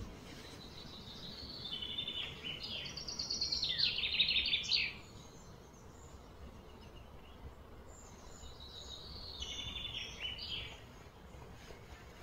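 A songbird singing two phrases of quick, repeated high notes. The first starts about a second in, builds louder and stops sharply near the five-second mark. The second, softer phrase comes around nine seconds in.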